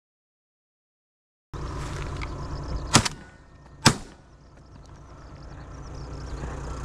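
After about a second and a half of silence, two shotgun shots go off about a second apart, with a spent shell ejected, over a steady low background rumble. The shots miss.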